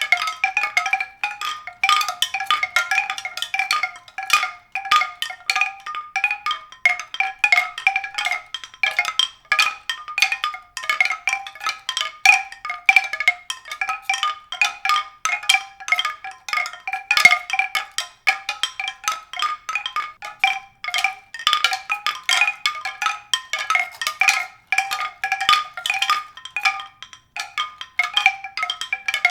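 Mallet-percussion music: a continuous stream of quick, struck, ringing notes in the middle-to-high register, several to the second.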